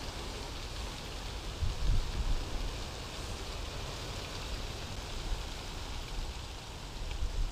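Steady outdoor hiss with no clear pitch, broken by short low rumbling bumps about two seconds in and again near the end.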